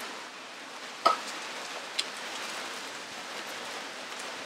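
Two sharp metallic clicks about a second apart, the first louder with a brief ring, over a faint steady hiss, as the front brake disc is handled and turned on its hub.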